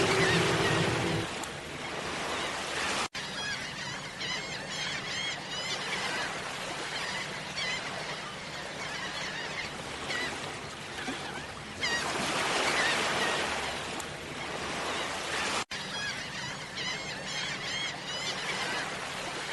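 Steady rush of a waterfall with small birds chirping over it again and again. The water swells louder twice, and the sound cuts out for an instant twice, like a loop restarting. A music track stops about a second in.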